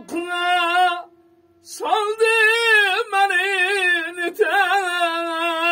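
A man singing long held notes with a wavering, ornamented pitch in three phrases with short breaks for breath, accompanying himself on a tar, a long-necked plucked lute with a double-bowl skin-topped body.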